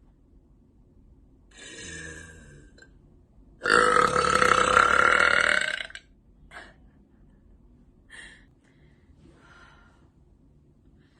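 A woman's long, loud burp lasting about two seconds, starting about three and a half seconds in and holding a steady pitch, after a softer sound a couple of seconds earlier.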